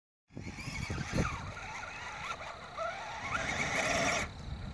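Electric motors of radio-controlled rock crawlers whining as they climb a dirt pile, the pitch gliding up and down with the throttle. The whine is strongest shortly before the end, then cuts off suddenly.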